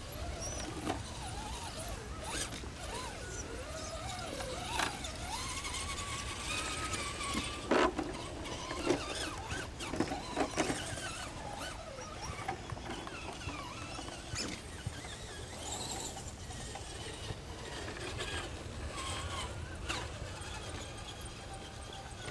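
Electric motors and gearboxes of RC scale crawler trucks whining, the pitch rising and falling with the throttle as they climb over sand, with a few sharp knocks about halfway through.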